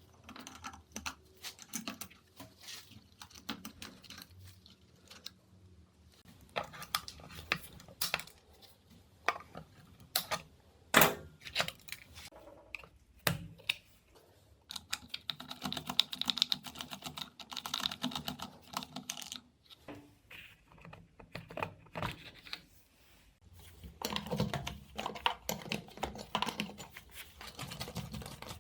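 Irregular small clicks, taps and rattles of hand work on a bench, with a few sharper knocks and stretches of denser scraping and rattling.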